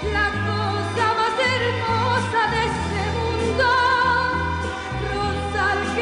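Music: a song's melody with strong vibrato over held bass notes that change every second or so.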